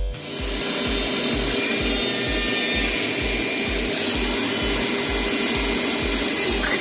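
AC TIG welding arc on aluminum: a steady hiss with a low throb pulsing about three times a second.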